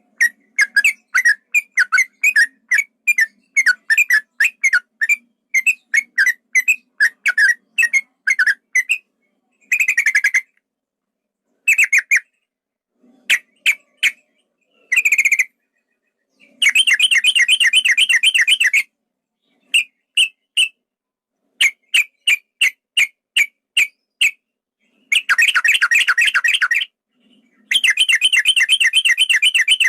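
Yellow-vented bulbul (trucukan) song: a long run of quick, sharp chattering notes at about three a second, broken by short pauses. In the second half come three dense rapid trills of about two seconds each, the long 'ropel' phrases used to provoke other males.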